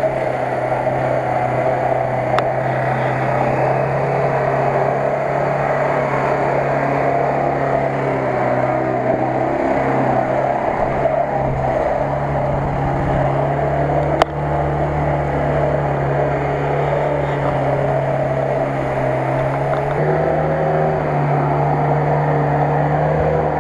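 Off-road 4x4 engine running steadily under load as the vehicle crawls up a steep dirt track, with a sharp knock about fourteen seconds in.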